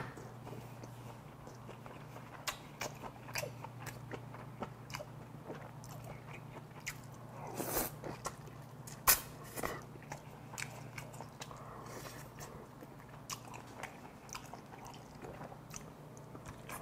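Close-miked mouth sounds of eating braised kimchi with pork: wet chewing and smacking, with many small clicks and a few louder smacks about midway.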